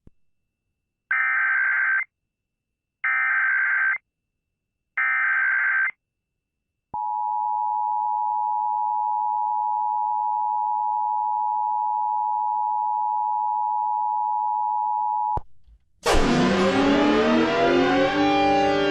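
Emergency Alert System activation heard over AM radio: three one-second bursts of SAME header data tones, then the steady two-tone EAS attention signal held for about eight seconds and cut off sharply. About a second later a music sting begins with sweeping tones.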